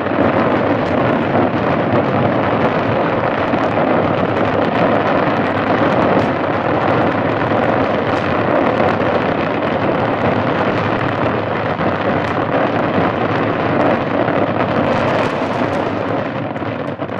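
Aerial fireworks going off in a dense, continuous barrage of shell bursts that blend into one steady, loud noise, thinning slightly near the end.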